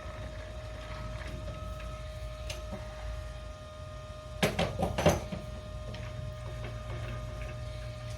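A machine motor running with a steady hum and a held whine. About four and a half seconds in comes a short burst of clattering knocks.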